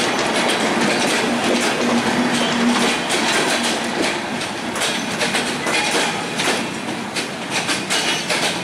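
Broad-gauge passenger train coaches rolling past close by, their wheels clattering over the rail joints in a dense run of clicks. The sound eases a little near the end as the last coach moves away.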